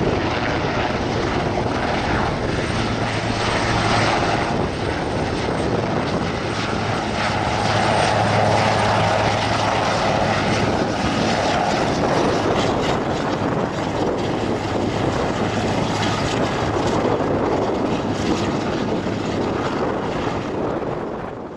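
AS 532 Super Puma helicopter flying a low display pass and then coming down low over the ground, its rotors and twin turboshaft engines running with a steady, loud noise and a constant low hum.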